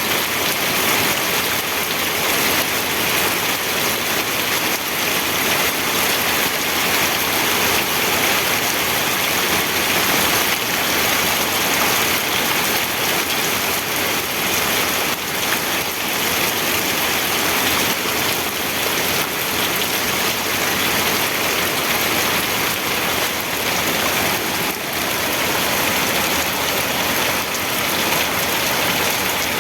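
Steady rain falling on a surface, an even, constant hiss of drops.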